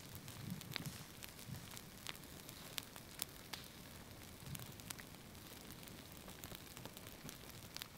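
Fire burning, with a steady faint hiss and irregular sharp crackles and pops.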